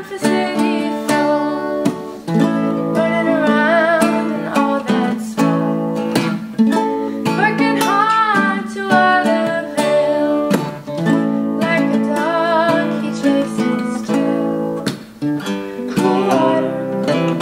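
Acoustic guitar and ukulele strummed together in a folk song, with a woman's voice singing a wavering melody above them.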